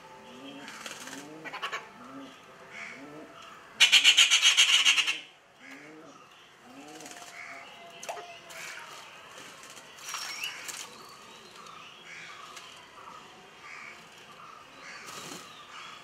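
Bird calls: a low coo repeated about twice a second through the first six seconds. About four seconds in comes a loud, harsh rattling call lasting about a second and a half. Fainter chirps and whistles from other birds follow.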